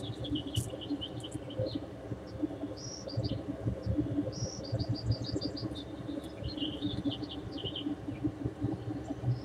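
Birdsong: runs of quick, high chirps that shift in pitch, over a low steady background rumble.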